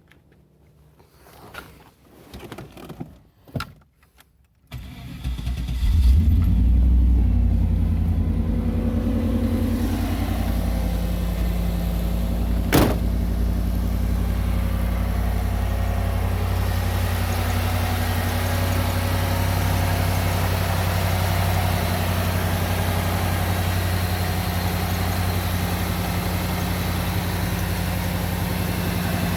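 1984 Pontiac Firebird Trans Am's 5.7-litre Tuned Port Injection V8 starting after a few short clicks and cranking sounds, catching about five seconds in. It runs at a raised cold-start idle, then settles to a steady idle. A single sharp click comes about thirteen seconds in.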